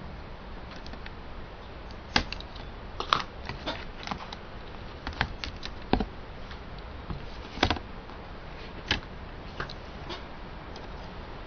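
Irregular light clicks and taps of small laptop parts and casing being handled during disassembly, over a steady background hiss.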